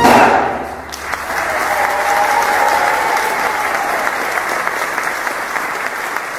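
Audience applauding as a brass band's final chord dies away. The clapping builds about a second in, then slowly fades.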